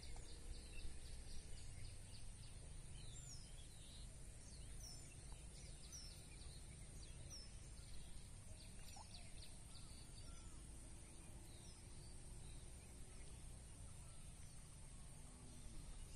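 Faint outdoor ambience: small birds chirping and trilling in the background, busiest in the first half, over a low rumble and a steady high-pitched hiss.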